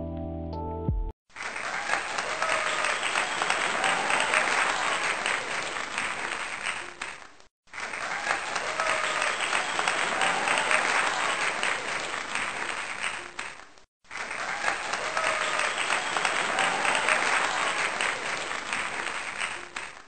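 About a second of background music, then a small group clapping and cheering, in three stretches of about six seconds each that cut off abruptly.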